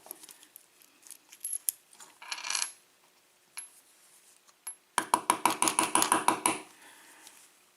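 Small metal clicks and a brief scrape from lock parts being handled, then a fast run of about a dozen and a half metallic clicks over a second and a half as the Schlage key-in-knob lock is turned and unscrewed with its key in it.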